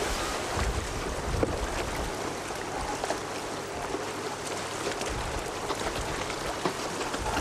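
Wind buffeting a camcorder microphone over a steady rush of wind and choppy surf on open sea. The low buffeting eases in the middle and picks up again near the end.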